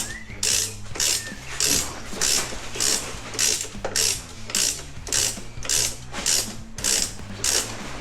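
Hand ratchet wrench driving a bolt home in quick, even strokes, each stroke a burst of clicking, just under two a second.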